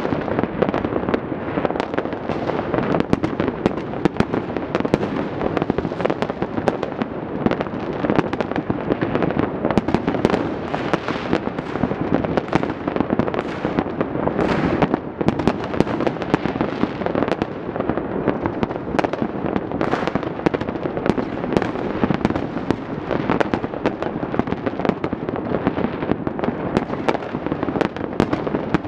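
Many fireworks and firecrackers going off across a city at once: a dense, unbroken crackle of pops and bangs, with sharper cracks standing out now and then.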